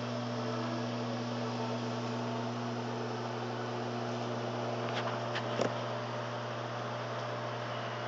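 LG stainless countertop microwave oven running, giving a steady hum with its fan, with a few light clicks about five seconds in.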